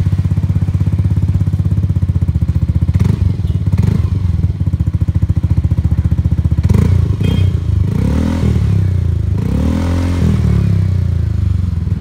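Yamaha NMAX scooter's single-cylinder four-stroke engine idling through an aftermarket McMufflers exhaust with a deep bass pulse. In the second half the throttle is blipped twice, the note rising and falling each time.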